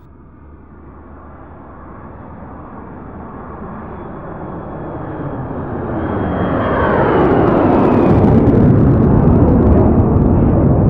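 Jet aircraft passing overhead: a rushing engine noise that swells steadily to a loud peak near the end, with a whine that falls in pitch as it goes by.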